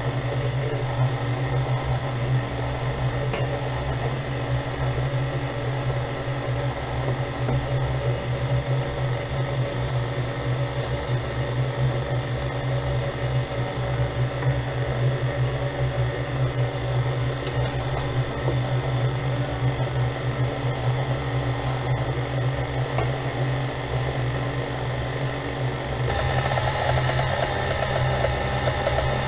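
Electric stand mixer beating cake batter at low speed, a steady motor hum. About 26 seconds in the sound shifts up, a little louder and brighter.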